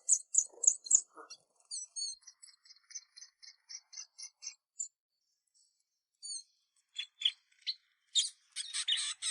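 Small songbirds chirping: a quick run of high chirps, several a second, fading out about five seconds in, then a dense new burst of calls near the end.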